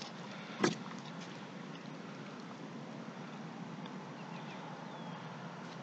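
Steady wind noise, with a single short thump a little under a second in.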